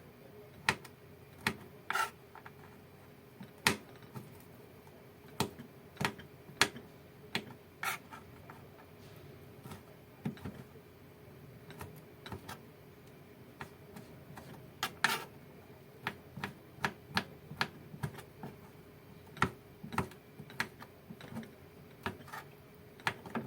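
Knife slicing dried shrimp on a cutting board: irregular sharp taps of the blade hitting the board, about one a second, with a quicker run of taps later on.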